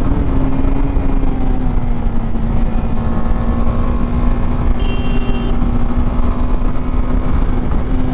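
KTM 390 Adventure's single-cylinder engine running at a steady cruising speed, its pitch holding nearly constant and sagging slightly, under heavy wind rumble on the microphone. A brief high-pitched chirp sounds about five seconds in.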